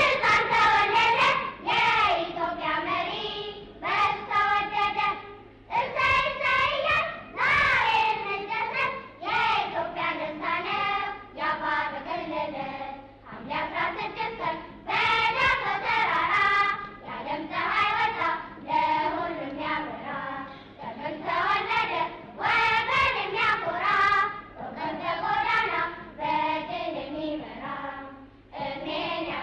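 A group of children singing a song together in short melodic phrases.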